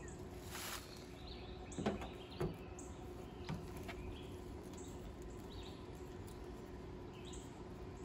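Quiet outdoor background with small birds chirping. Two light clicks about two seconds in come from a screwdriver bit being fitted into the Torx screw in the van's rear door-handle recess.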